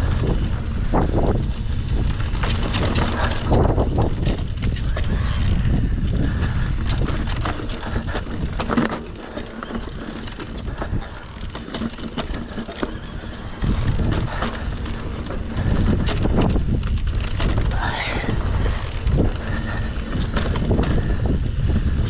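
Electric mountain bike riding over a rough dirt trail: wind rumbling on the microphone, with a steady run of rattles and knocks from the bike over bumps and rocks. It goes quieter for a few seconds in the middle.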